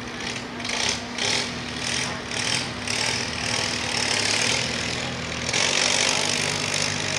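Classic pulling tractor's engine at full throttle under load as it starts dragging the weight sled, surging in repeated pulses about twice a second over the first few seconds, then running steadily loud from about five and a half seconds in.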